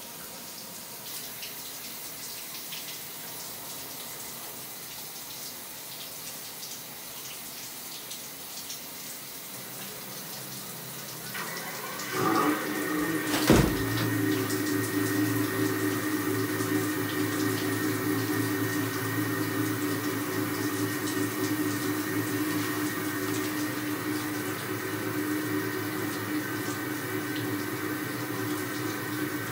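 Shower water running with a steady hiss. About twelve seconds in it grows louder and a steady whine from the plumbing sets in. A sharp knock comes just after.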